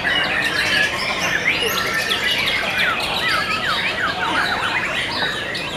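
Several caged white-rumped shamas (murai batu) singing at once in a dense, unbroken tangle of quick whistles, rising and falling sweeps and chirps.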